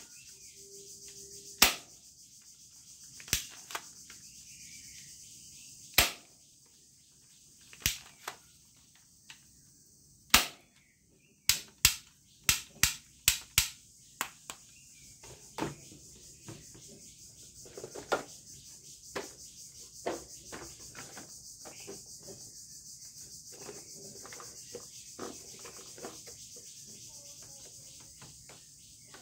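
Sharp plastic clicks and knocks as plastic toy guns and a toy jeep are handled, with a quick run of about six clicks near the middle, over a steady high hiss.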